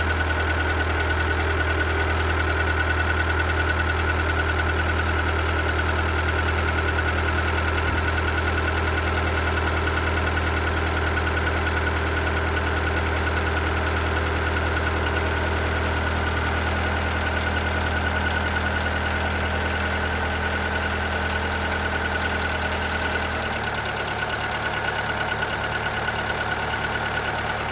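Seat Ibiza 1.4 BXW petrol engine idling with a knock from the engine, which the owner takes for piston slap. About three-quarters of the way through, the deep drone of the idle drops a little and changes.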